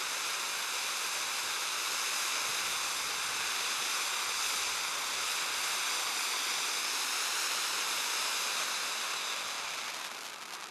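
Titanium ground-fountain firework (SkyLine Titanium Volcano) spraying sparks with a steady, even hiss. About ten seconds in it begins to die away, sputtering with small crackles as it burns out.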